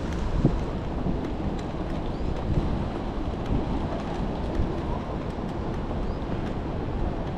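Rainy city street ambience: a steady low rumble of traffic and rain, with a few faint ticks.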